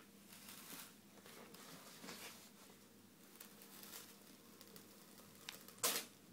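Faint rustling and soft tearing of wallpaper being peeled off a wall, with one short, louder rustle about six seconds in.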